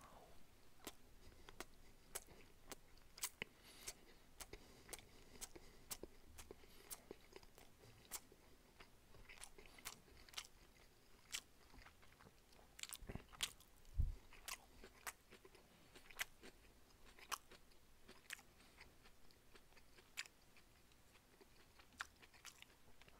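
Faint, close-miked chewing of a piece of sushi that looks like eel: irregular small mouth clicks, a few a second, with one low thump about fourteen seconds in.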